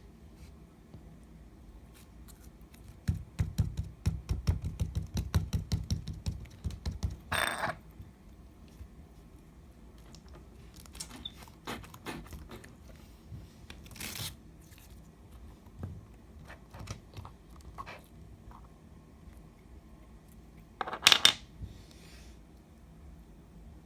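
Slime being worked by hand: a quick run of small clicks and pops for about four seconds, then scattered pops, with a louder burst of crackling near the end.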